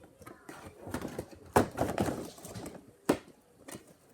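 Handling noises with two sharp knocks, about one and a half seconds and three seconds in, and muffled rustling between them.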